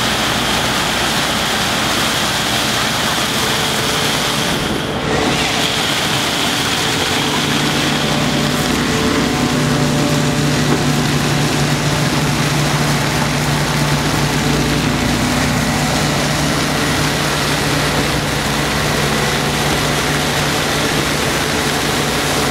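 Engine-driven ice blower running steadily, blasting crushed ice through a large flexible hose to lay artificial snow: a dense rushing hiss over a low machine hum. The hiss dips briefly about five seconds in, and the hum grows stronger a couple of seconds later.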